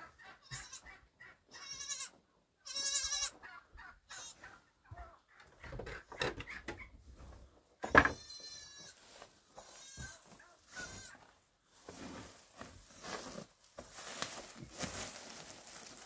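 Sheep bleating several times, wavering calls with the loudest about eight seconds in, over footsteps and rustling on a straw-covered shed floor.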